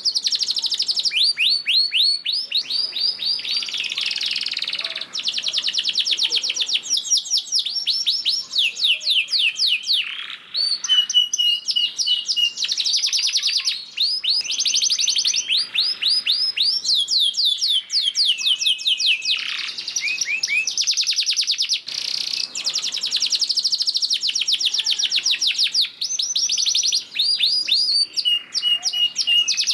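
Domestic canary singing a long, almost unbroken song of fast rolling trills, broken by a few held whistle notes.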